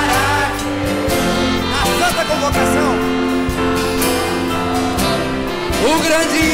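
Church congregation singing a hymn, voices wavering in pitch, over instrumental accompaniment that holds steady chords changing about once a second.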